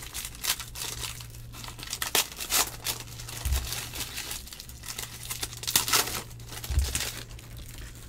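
Foil trading-card pack wrappers crinkling and tearing, handled and crumpled in quick irregular rustles, with two dull low thumps, one about three and a half seconds in and one near the end. A steady low hum runs underneath.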